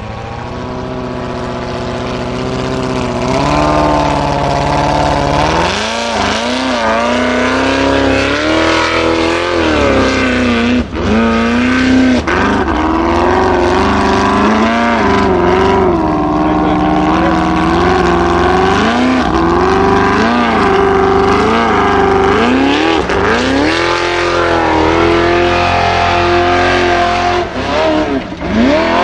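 Formula Offroad buggy's engine revving up and falling back over and over under heavy load as it claws up a steep, loose dirt hill.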